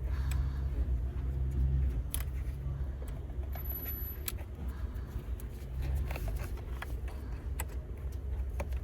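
Mercedes-AMG GT43's engine running at idle, a steady low hum with scattered sharp ticks and clicks over it.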